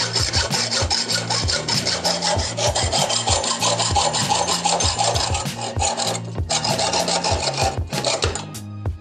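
Hand hacksaw cutting through a bicycle fork steerer tube clamped in a vise: rasping back-and-forth strokes of metal on metal. The sawing breaks off briefly twice in the second half and stops near the end. Background music with a steady beat plays underneath.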